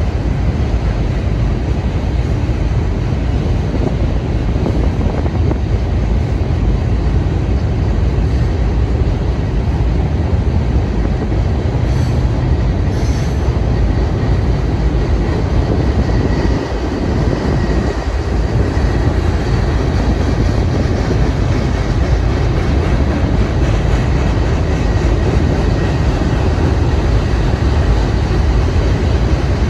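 CSX freight train cars rolling across a steel truss bridge: a steady, heavy rumble of wheels on rails and bridge steel.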